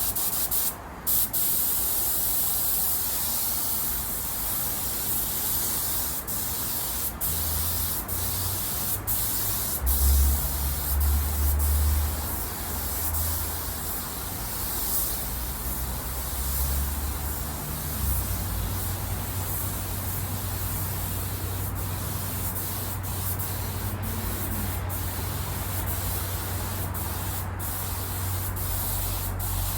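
Spray gun hissing as it lays a final coat of finish on leather car seats, the spray cutting off briefly again and again as the trigger is let go between passes. A low hum runs underneath, louder around ten to twelve seconds in.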